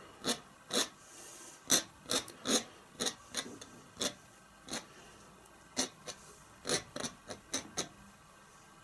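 Steel palette knife scratching through wet oil paint on a stretched canvas, about fifteen short, quick scrapes at an irregular pace as grass-blade lines are scored into the paint (sgraffito). The scraping stops near the end.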